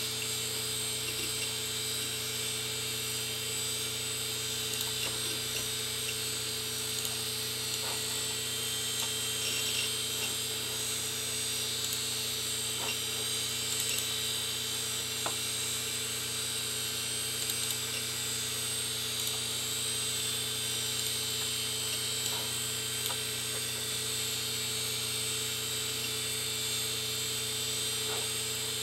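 1997 Fujitsu 2.4 GB hard drive running with its cover off: the platters spin with a steady hum and high whine while the read-write head seeks, giving faint irregular ticks, as files are being written to the drive.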